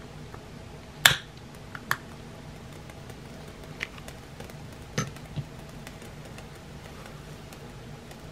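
A loud sharp click about a second in, then a few fainter clicks and taps, from lighting the model Stirling engine's small alcohol lamp, over a faint steady hum. The engine is not yet running; it is warming up.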